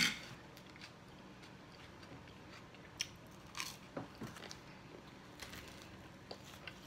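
A sharp clink of cutlery against the plate at the start, then faint scattered crunches and clicks of eating and handling cheesy garlic bread whose toasted crust is crunchy.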